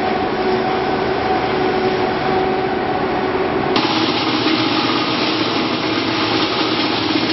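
Electric-motor-driven processing machines running steadily, a hum with a steady whine over mechanical noise. A little under four seconds in, the sound changes abruptly to a brighter, hissier machine noise from another machine.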